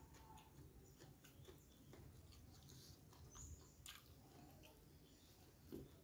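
Faint chewing of martabak with scattered small wet mouth clicks, one a little sharper about two-thirds of the way in.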